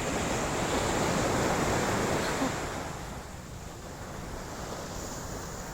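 Sea waves washing onto the shore: a swell of surf for the first couple of seconds that eases off about halfway through, with wind rumbling on the microphone.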